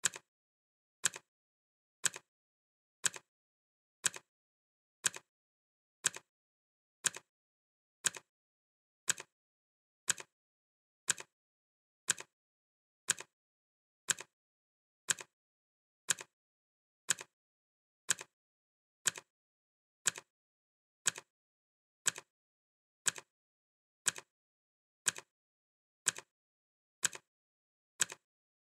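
Clock ticking, one sharp tick each second, with silence between the ticks.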